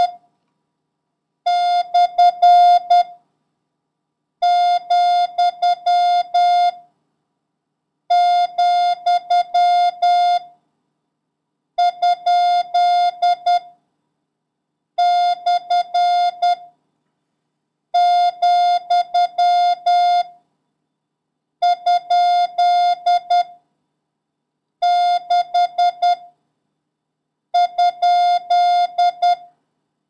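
Morse code practice tone: a single steady mid-pitched beep keyed into dots and dashes, one character at a time, each sent quickly with a gap of about a second and a half of silence before the next, about nine characters in all. It is a copying drill of the characters 6, comma, slash and question mark.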